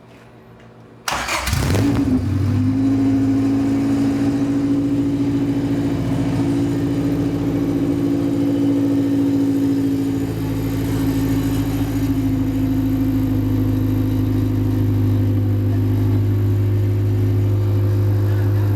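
A freshly swapped engine in a Honda Civic coupe cranks briefly about a second in, catches at once and settles into a steady idle: a first start after the engine install, running smoothly.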